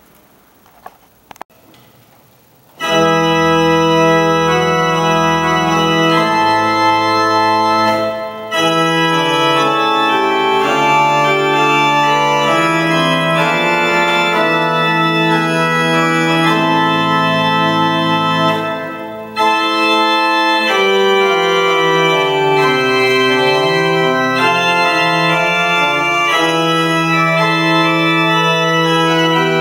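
Pipe organ playing a slow polyphonic piece in long sustained chords, entering about three seconds in after a few faint clicks. The sound breaks off briefly twice between phrases.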